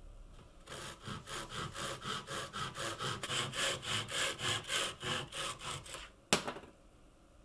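Japanese pull saw cutting through a softwood board in quick, even strokes, about four a second, as it rides along a magnetic saw guide. The cut finishes with one sharp knock as the sawn-off piece drops.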